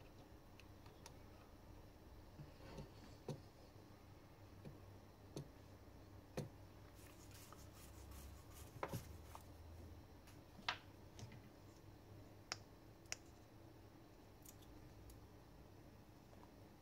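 Small scattered clicks and taps from a precision screwdriver and a phone mainboard being handled on a desk, a dozen or so irregular ticks over a faint steady hum.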